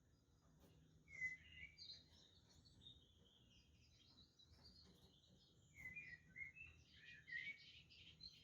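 Budgerigars chirping and chattering in a faint, warbling run of quick chirps, which grows busier about a second in and again near the end.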